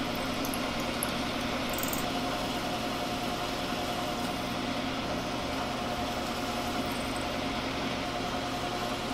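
Drill press running, a number 7 stubby drill bit cutting through a stack of laser-cut metal plates: a steady motor hum, with a steady higher tone joining about two seconds in as the bit cuts.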